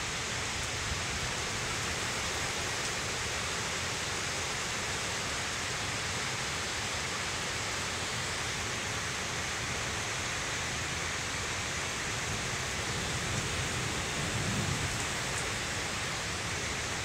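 Heavy downpour, a steady even hiss of rain; a low rumble of thunder swells briefly near the end.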